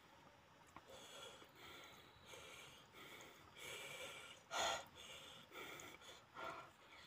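A person eating with their hands, chewing with breathing and mouth noises in a run of short soft sounds, one louder about four and a half seconds in.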